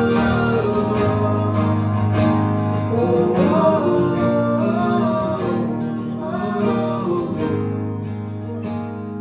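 Live country music: two acoustic guitars strummed, with a woman's and a man's voices singing together over steady low notes. The music grows quieter near the end.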